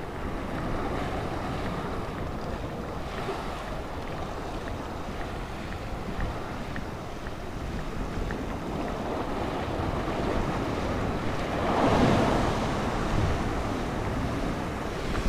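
Sea washing against shoreline rocks, with wind buffeting the microphone; one wave surges in louder about twelve seconds in.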